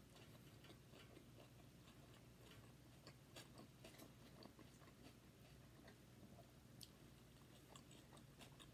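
Quiet chewing with scattered faint, small clicks over a low steady room hum.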